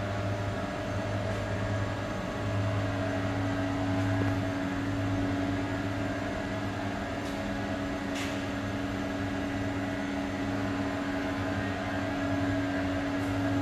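Steady electrical hum of industrial switchgear and drives, with a strong low drone and several steady higher tones over it, and a faint tick about eight seconds in.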